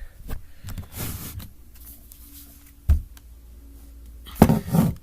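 Handling noises: scattered light clicks and knocks, a low thump about three seconds in, and a louder clatter of knocks near the end.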